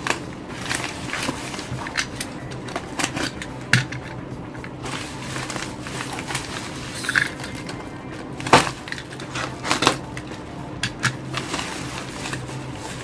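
Packaging being unwrapped by hand: irregular crinkling, rustling and sharp crackles of paper and plastic wrapping, over a steady low hum.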